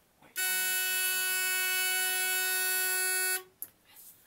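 Simplex 4903-9236 electronic fire alarm horn sounding one steady, continuous blast of about three seconds that starts and cuts off suddenly.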